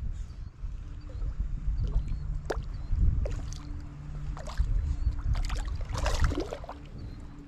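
Wind buffeting the microphone with a low, uneven rumble that swells about three and six seconds in, with a few sharp clicks and rustles, the thickest cluster near six seconds.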